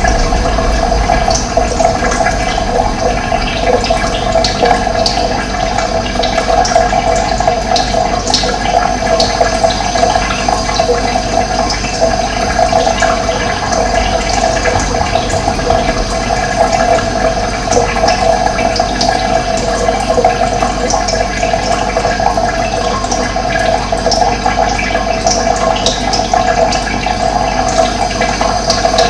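Running water rushing steadily, a continuous flow like a stream or small cascade.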